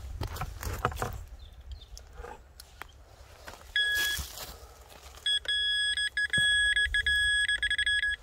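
Electronic beeping from a handheld metal detector: one short steady tone about four seconds in, then a run of rapid, stuttering beeps on the same pitch for the last three seconds. Faint knocks and rustles in the first second.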